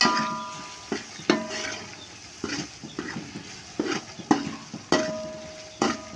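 Slotted metal spoon stirring a spiced onion-tomato masala frying in oil in a metal pot: about ten knocks of the spoon against the pot, each ringing briefly, over a steady sizzle. This is the masala being fried down (bhuna) before the vegetables go in.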